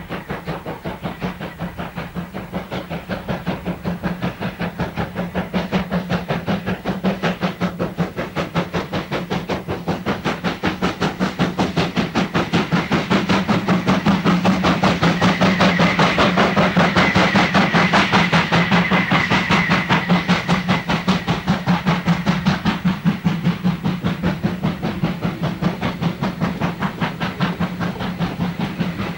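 Steam locomotive working hard up a steep grade, its chimney exhaust beating in a fast, even rhythm that grows louder toward the middle and then eases. A thin, steady high tone sounds over the beats for several seconds in the middle.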